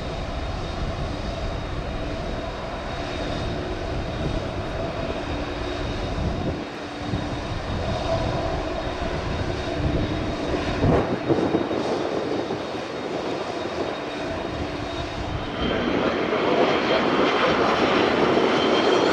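Jet airliner engines with a steady whine. The sound grows louder about three-quarters of the way through, and the high whine rises in pitch near the end.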